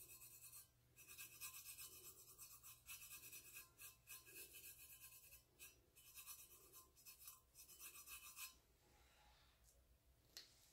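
Faint rubbing of a fingertip working rust-coloured paste across a stainless steel tumbler, in quick strokes several times a second, stopping about eight and a half seconds in.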